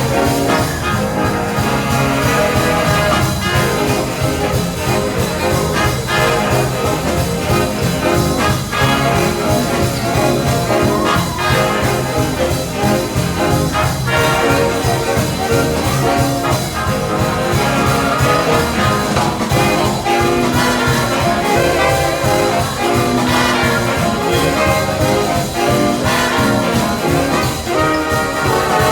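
Big band playing swing music live: trumpets and trombones over a steady beat of bass and drums.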